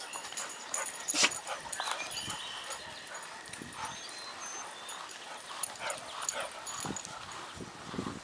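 Dogs making short scattered vocal sounds, the loudest a sharp one about a second in.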